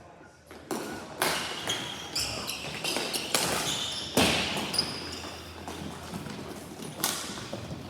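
Ball hockey in play: a run of sharp echoing cracks of sticks on the ball and the ball off the boards, five or so over the span, the loudest about four seconds in, with short high squeaks between them.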